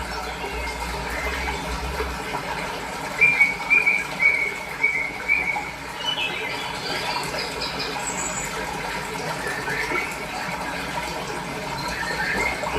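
Fresh water flowing steadily, with small birds chirping over it; a quick run of short repeated chirps comes a few seconds in, and scattered chirps follow later.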